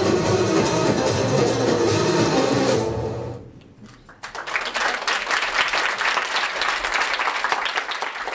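Belly dance music fades out about three seconds in. After a short pause, an audience applauds.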